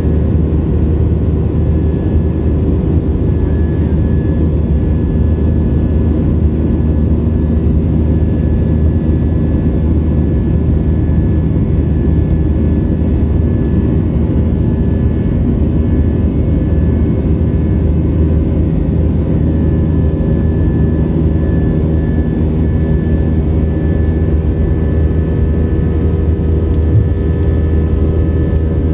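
Steady, loud cabin drone of a jet airliner in flight: engine and airflow noise with a low hum and a few steady tones, unchanging throughout.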